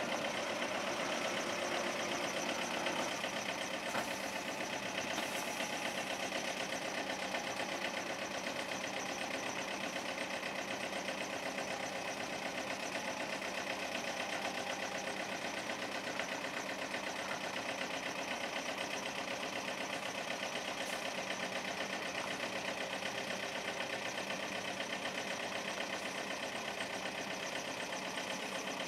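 Diesel engine of a DAF heavy-haulage tractor unit idling steadily.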